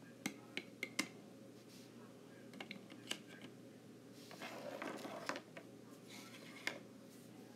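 Small plastic toy figures and toy furniture being handled on a tabletop, giving a few scattered light clicks and taps, with a soft rustle about four to five seconds in.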